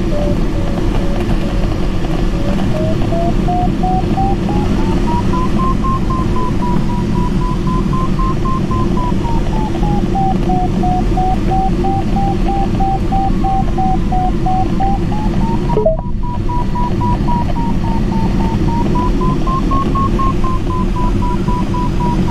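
Steady airflow noise in a glider cockpit, with an electronic variometer beeping over it. The beeps rise in pitch a few seconds in, dip lower in the middle and rise again near the end, signalling the glider climbing in lift. The sound cuts out for a moment about sixteen seconds in.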